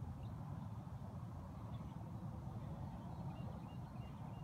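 Outdoor ambience: a low, steady rumble with a run of short, faint bird calls about three seconds in.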